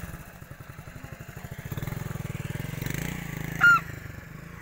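Small motorcycle-type engine running with a steady rapid putter. About three and a half seconds in comes a single short, loud honk that bends in pitch.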